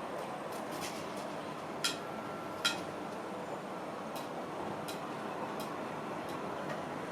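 Steady city background noise with a series of light, sharp clicks at roughly even spacing, about every 0.7 seconds; the two loudest come about two seconds in.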